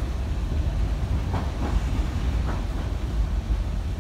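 Hankai Tramway streetcar running along its track, heard from inside the car: a steady low rumble of motors and wheels, with a few short knocks from the wheels passing over rail joints.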